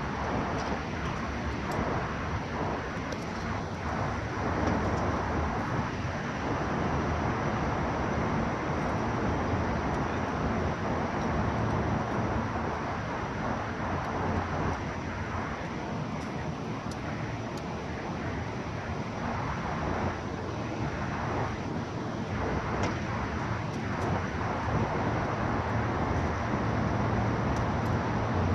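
Steady city street noise: road traffic running by, with no single event standing out.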